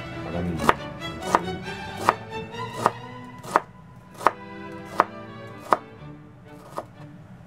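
Kitchen knife chopping myoga (Japanese ginger) on a cutting board: about ten sharp knocks at a steady pace of roughly one every three-quarters of a second, the last few weaker and farther apart. Background music plays underneath.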